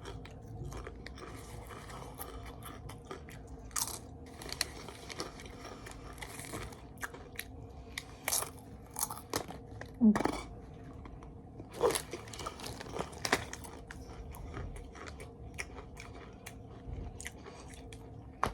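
Small items being handled and packed into a Chromebook case: scattered light clicks, taps and rustles, a few of them sharper.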